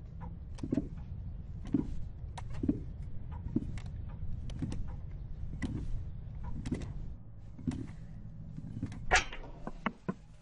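Soft knocks repeating at an even pace of about one a second over a low steady rumble, with a louder, longer knock a little before the end.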